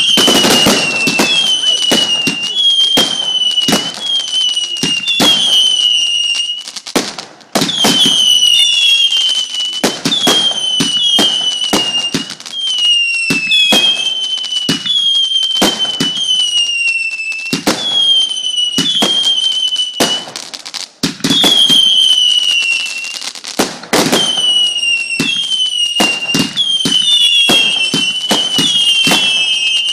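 Firework firing a long run of whistling shots: one falling whistle after another, about one a second, with sharp bangs and pops among them and two brief lulls.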